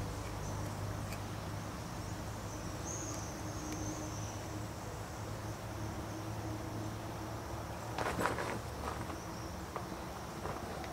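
Faint insect trill over a steady low hum, with a brief rustle and a few clicks about eight seconds in as cord is pulled tight around a wooden saw handle.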